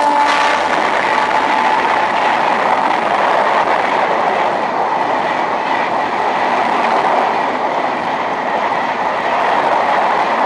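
Express train of red LHB coaches, hauled by a WAP-7 electric locomotive, passing close by at high speed. Its wheels on the rails make a loud, steady rush. The locomotive's horn drops in pitch and cuts off right at the start.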